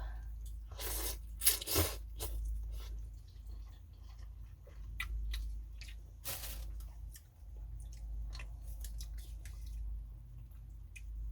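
Eating pho close to the microphone: chewing, with a few loud slurps about a second in, near two seconds and again around five to six seconds in.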